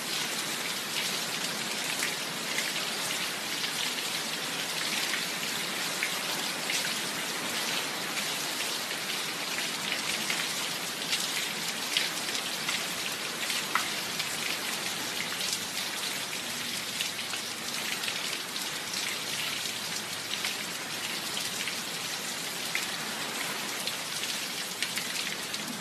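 Heavy rain falling steadily: a dense, even hiss peppered with many sharp little drop ticks.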